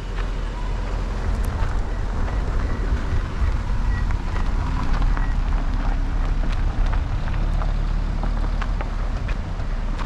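Wind buffeting the microphone, a steady low rumble, with scattered faint clicks and a faint thin whistling tone in the first half.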